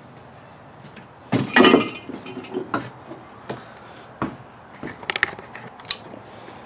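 Handling noises: a loud clatter about a second and a half in, then a series of lighter knocks and clicks.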